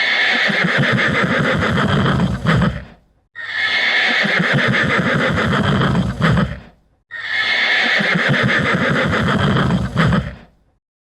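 A loud animal call, about three seconds long, played three times with short silent gaps between.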